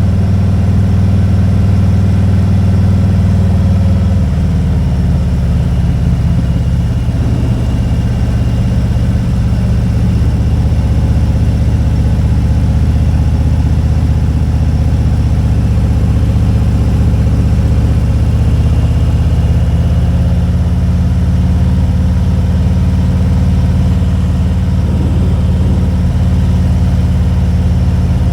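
Motorcycle engine running steadily while riding, its note shifting lower about four seconds in.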